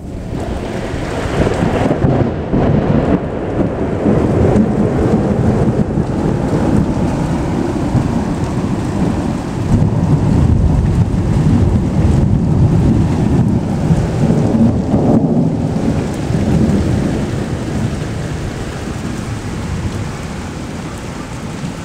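Long rolling thunder from a nearby lightning strike, building within the first couple of seconds, swelling again about halfway through, then slowly dying away near the end, over steady rain.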